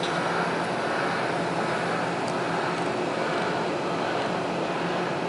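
Heavy construction machinery running steadily: the diesel engine of a mobile crane working a lift, a low, even hum under a constant noise.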